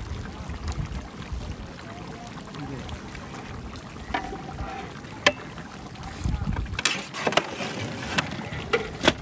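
A long-handled metal ladle stirring meat curry in a large aluminium cooking pot, with a few sharp clanks of metal against the pot, over wind rumbling on the microphone.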